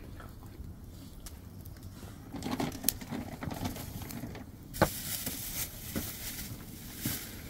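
Small wood campfire crackling, with scattered pops and light knocks, the sharpest a little under five seconds in.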